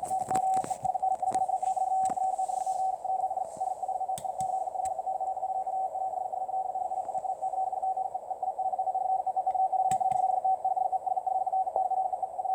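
Very fast machine-sent Morse code received on a shortwave receiver: a single tone keyed on and off in a rapid, unbroken stream, too fast and regular for a hand key, so a computer is sending it. Faint static under it, with a few clicks in the first two seconds and one about ten seconds in.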